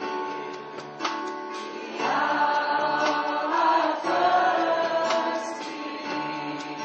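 Christian worship band performing: several voices singing held notes together over instrumental backing, with a steady beat. The singing swells louder about two seconds in.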